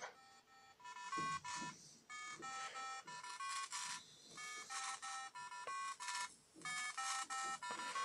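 An Arduino's tone-melody beeps, picked up over the air by a phone's FM radio tuned to 96.0 MHz and played through the phone's speaker: runs of short electronic notes stepping up and down in pitch, repeating in groups about every two seconds with short gaps, over a faint radio hiss.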